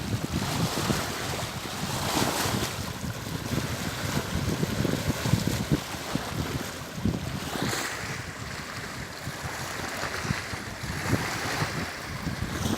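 Wind gusting against the microphone, with a steady rush of lake water lapping underneath.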